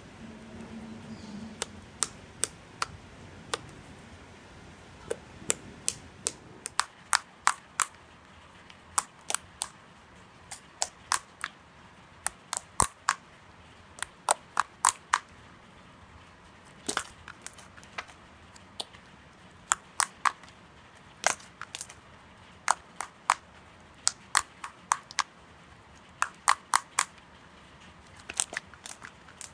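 Slime being pressed and poked by hand, giving sharp clicking pops in quick clusters of two to five, with short pauses between them.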